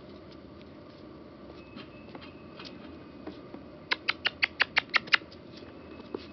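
Puppies at play, with light scuffling, then a quick run of about nine high-pitched squeaks, around seven a second, starting about four seconds in.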